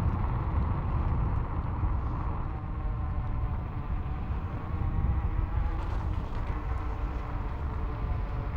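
Riding noise from an Isinwheel GT1 electric scooter on a dirt path: a heavy, uneven low rumble of wind on the microphone, with a faint steady hum from the motor.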